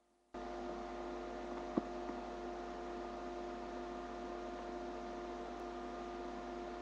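Steady electrical hum and hiss, with several fixed tones running through it, and a single sharp click a little under two seconds in.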